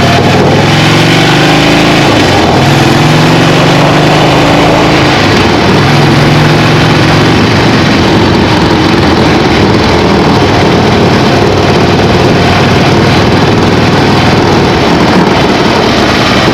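2008 Harley-Davidson Fat Bob's Twin Cam 96 V-twin engine running loudly, its pitch rising and falling in the first few seconds, then holding steadier. The bike shakes and rattles, which the owner suspects comes from worn-out motor mounts.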